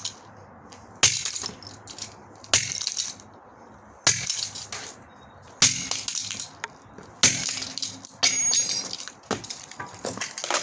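An old cordless phone being smashed with heavy blows, about six hard hits spaced roughly a second and a half apart, with cracking and rattling of the plastic housing and loose parts after the later hits.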